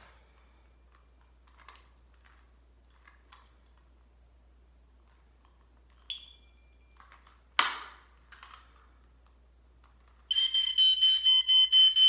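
A few faint clicks, a short high beep about six seconds in, and a sharp click a moment later. Near the end the Coleman Sheltra smoke and fire alarm's horn sounds: a loud, shrill, steady-pitched tone, pulsing rapidly.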